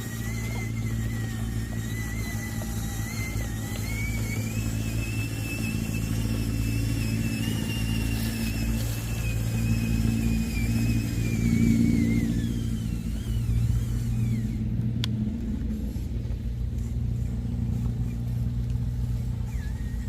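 Radio-controlled model construction trucks running: a steady low engine-like hum with a thin, high motor whine that wavers, rises about four seconds in and fades out around twelve seconds in. A single sharp click about fifteen seconds in.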